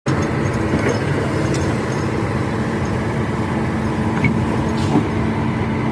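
Excavator's diesel engine running steadily, with a few faint knocks.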